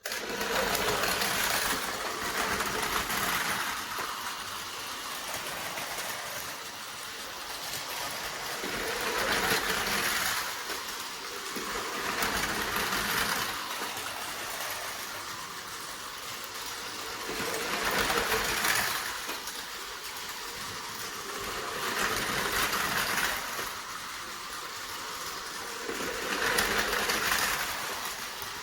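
Two battery-powered Tomy Plarail toy trains running on plastic track: small electric motors and wheels rattling steadily. The sound swells and fades every few seconds as the trains come near and go away.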